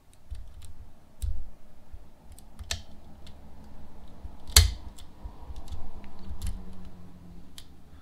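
Lock pick and tension wrench working the pins of a clear acrylic practice padlock: a scatter of light metallic clicks and scrapes, with one sharper click about four and a half seconds in.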